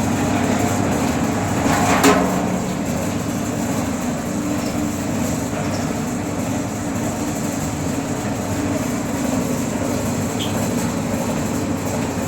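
Glass bottle washing machine running steadily, with a louder knock about two seconds in.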